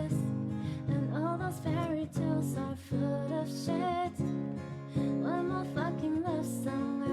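Music: a pop song cover with strummed acoustic guitar and a singing voice holding wavering notes.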